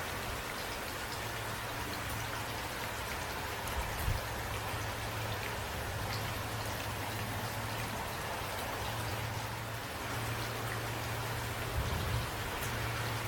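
Steady rain falling, an even hiss with a low steady rumble underneath. It briefly grows louder with low bumps twice, about four seconds in and near the end.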